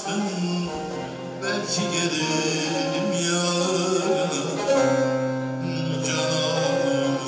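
Bağlama, the long-necked Turkish saz, played with plucked and strummed notes over steady drone strings, with a man singing long held notes in Turkish folk style.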